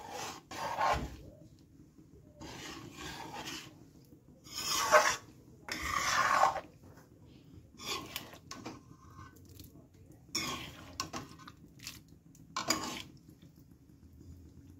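A metal slotted spoon scraping and stirring curry in a steel kadhai, in several separate strokes with short pauses between.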